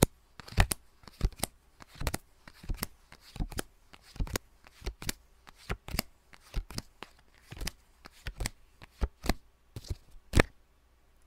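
Playing cards snapped down or flipped one after another, a short sharp snap about twice a second, stopping shortly before the end.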